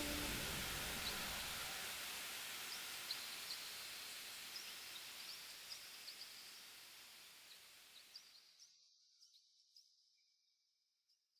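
Outdoor ambient noise with short, high bird chirps scattered through it, fading out steadily until it is gone about eight and a half seconds in; a few faint chirps remain after.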